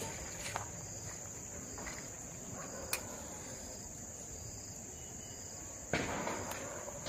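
Crickets chirping in a steady high-pitched drone, with a single sharp click about three seconds in and a rustling noise starting near the end.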